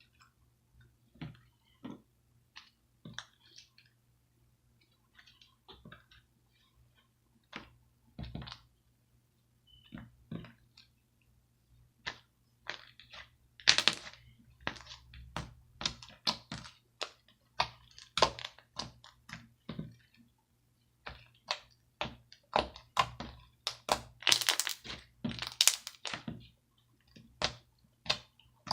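Series of small sharp pops and cracks, sparse and faint at first, then coming quicker and louder from about halfway through, with the loudest pops near the end.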